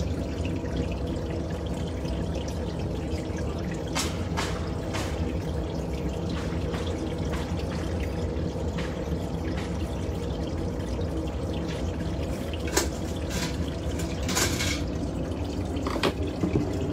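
Steady rushing background noise with scattered light clicks of a steel glassblowing tool against the neck of a blown-glass ornament on its blowpipe. A few clicks come about four to five seconds in and a few more near the end.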